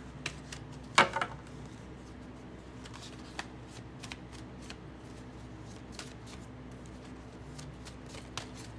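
A tarot deck shuffled by hand: scattered light card clicks and flicks, the sharpest snap about a second in, over a faint steady low hum.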